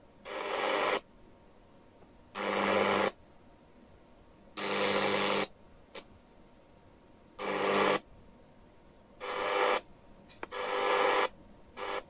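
XHDATA D-109WB portable radio's speaker on medium wave giving short bursts of noisy reception, each about a second long and coming roughly every two seconds, cut to near silence in between as the tuning knob steps through the band.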